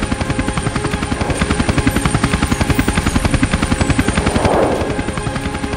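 Military helicopter rotor chopping in a fast, even beat, with a brief whoosh about four and a half seconds in.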